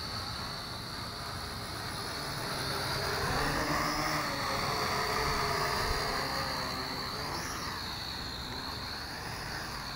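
JJRC H12C toy quadcopter flying low, its four propellers and motors whining steadily. The pitch wavers up and down as the throttle changes. It grows louder about three seconds in and eases off again near the end.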